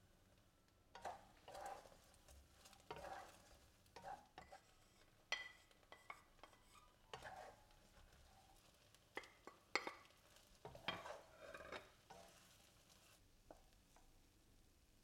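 Wooden spatula stirring and tossing cubes of fried turnip cake in a non-stick wok, in irregular scrapes and knocks that stop about 13 seconds in.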